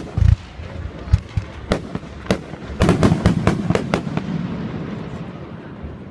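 Aerial fireworks bursting: a deep boom just after the start, scattered sharp reports, then a rapid cluster of crackling bursts around three seconds in, with the rumble dying away toward the end.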